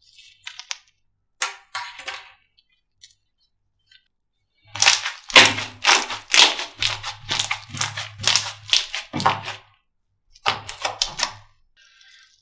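Slime being squeezed and pressed by hand, giving sharp sticky clicks and pops. A few come early, then a fast dense run of them in the middle and a shorter burst near the end.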